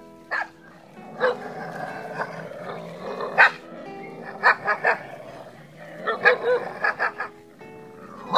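Dogs barking, a few short barks at a time in clusters, over background music with held notes.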